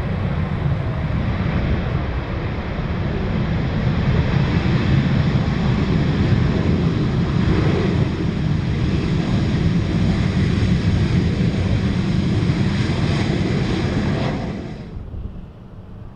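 Jet engines of a Ryanair Boeing 737 running at high power as the airliner rolls along the runway: a loud, steady jet noise that builds over the first few seconds, holds, then cuts off suddenly about 15 seconds in.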